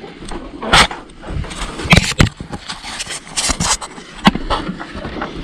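Someone climbing down a wooden ladder with rope handholds: irregular knocking and scraping of hands, boots and camera against the wooden rails and ropes, with a few sharp knocks.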